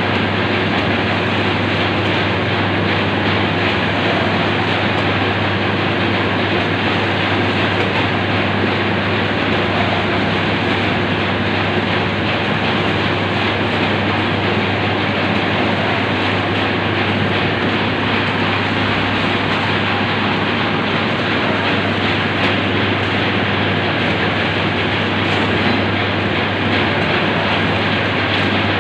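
Meatball packing machine running: a steady, even mechanical noise over a constant low hum.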